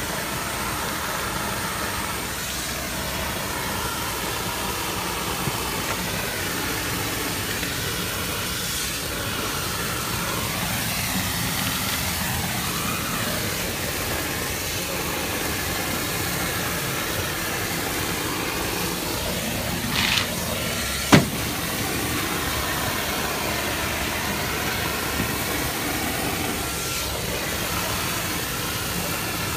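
Shotcrete being sprayed: a steady machine drone with the hiss of compressed air blowing concrete out of a hose nozzle onto a wall. About two-thirds of the way through, a short burst of noise is followed by one sharp knock.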